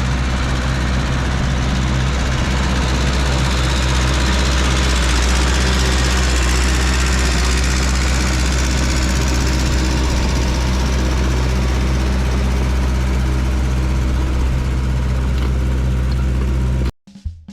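Massey Ferguson 300 crawler dozer's engine running steadily under load as it pushes dirt, with a continuous mechanical rumble; it cuts off suddenly near the end.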